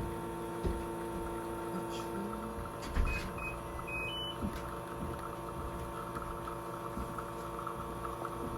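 A steady mechanical hum of several held tones, with a few soft knocks and a few short high beeps about three to four seconds in.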